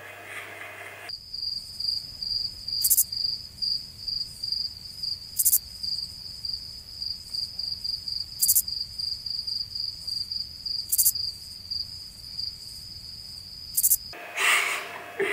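Crickets-chirping sound effect: a steady, rapidly pulsing high trill with a faint click about every two and a half seconds, cut in abruptly about a second in and cut off near the end. It is the stock 'crickets' gag for an awkward silence after an unanswered question.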